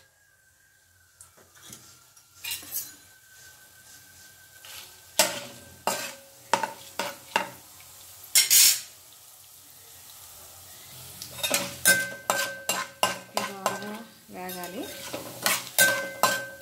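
Tempering spices (dried red chillies, dals and mustard, cumin and coriander seeds) frying in a little hot oil in a metal kadai with a faint sizzle. A metal spatula scrapes and clinks against the pan, sparse at first and in quick clusters near the end, the pan ringing briefly after some strikes.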